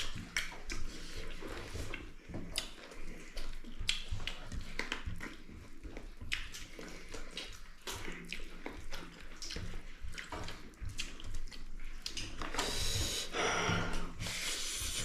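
Close-up eating sounds: chewing, wet lip smacks and clicks from someone eating chicken and rice, with a longer, louder noisy stretch near the end.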